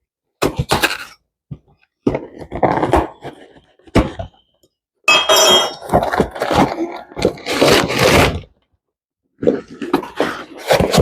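Packaging and product containers being handled and set down: irregular thunks, scrapes and light clinks in short bursts with brief silent gaps between.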